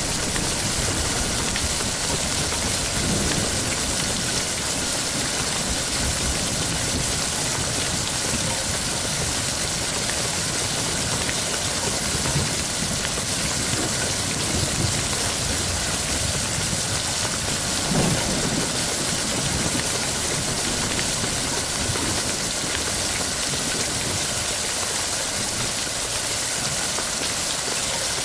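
Steady heavy rain, an even hiss of falling drops, with a low rumble in the first few seconds and a single short low thump about two-thirds of the way through.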